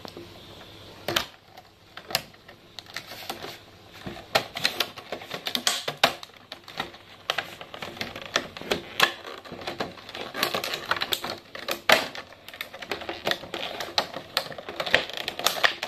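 Fingers picking and prying at a cardboard toy box with a clear plastic window, making an irregular string of sharp clicks, snaps and crinkles of plastic and card.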